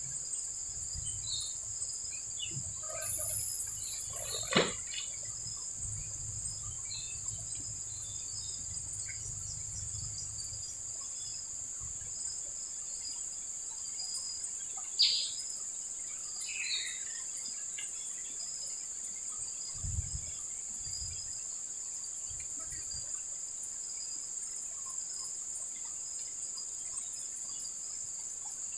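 Steady high-pitched drone of insects in the riverside vegetation, with a few short bird chirps and a couple of sharp clicks, the loudest about four and a half and fifteen seconds in.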